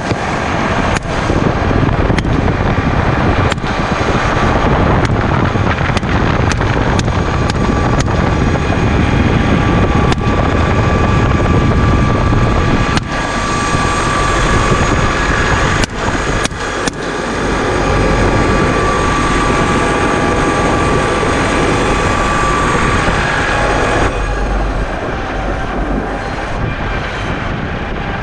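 Helicopter turbine and rotor noise, loud and steady with a thin whine, broken by sharp cracks of AR-15 rifle shots scattered throughout, several in quick succession about halfway through.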